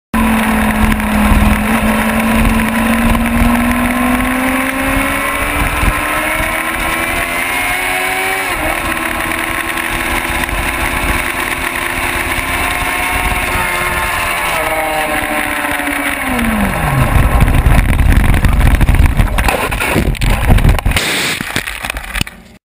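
Race motorcycle engine at high revs, its pitch climbing and dropping at a gear change. Then the engine note falls away sharply and loud rushing, scraping noise with a few hard knocks takes over as the bike goes down in a crash after losing its front brakes, before the sound fades out.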